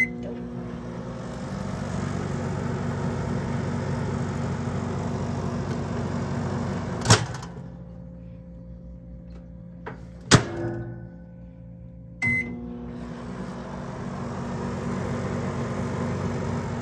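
Microwave oven running with a steady hum, started with a short beep. About seven seconds in it cuts off with a click as the door is opened; another click follows about three seconds later, then a beep, and the hum starts again.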